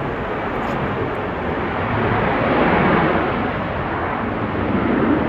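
Jet airliner noise: a loud, steady rush of engine sound that swells about halfway through and again near the end.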